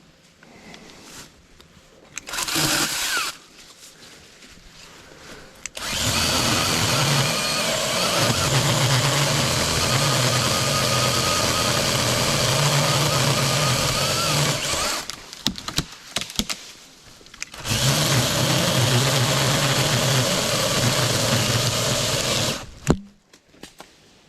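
A Saker 20-volt cordless mini chainsaw. It gives a short burst about two seconds in, then runs steadily for about nine seconds while cutting dead limbs, stops, and runs again for about five seconds. A sharp knock comes near the end.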